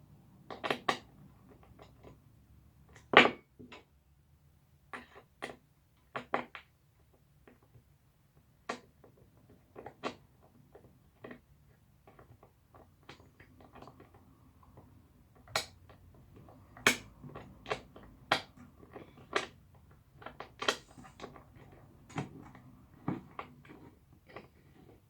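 Irregular knocks and clicks of chair parts being handled and fitted together during assembly, with a sharper knock about three seconds in.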